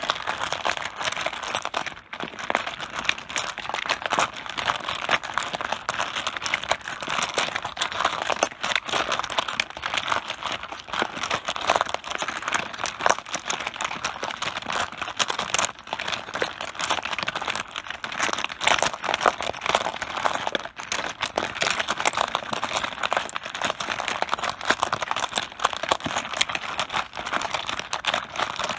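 Mahjong tiles clattering against each other and the tabletop in a dense, continuous stream of clicks.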